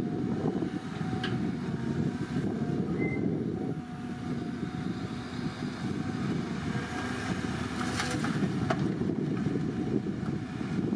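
Heavy diesel construction machinery, an excavator, running steadily with a dense low rumble, with a few sharp metallic clanks: one about a second in and two close together about three-quarters of the way through.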